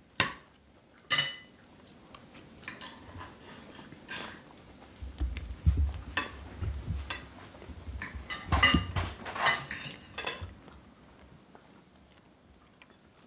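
Knives and forks clinking and scraping on dinner plates as people eat at a table, with scattered sharp clinks that bunch together about two-thirds of the way through. Low dull bumps come in the middle.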